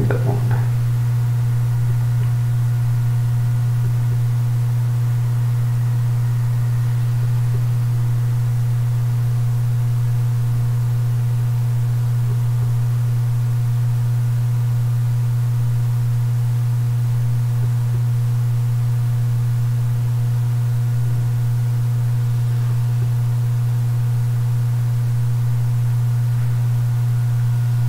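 A loud, steady electrical hum: a low drone with a stack of fainter, higher overtones above it, unchanging, with no other sound.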